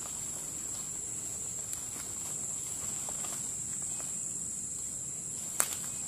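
A steady, high-pitched drone of insects, with faint footsteps through grass and undergrowth and one sharp click about five and a half seconds in.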